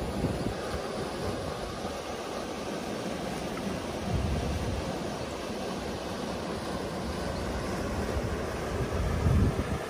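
River water rushing steadily over granite boulders into a pool, with wind buffeting the microphone about four seconds in and again, louder, near the end.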